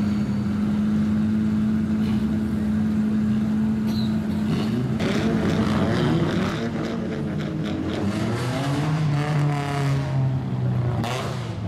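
Straight-piped exhausts of lowered old Japanese street cars: one engine held at steady high revs for about five seconds, then engines revving up and down.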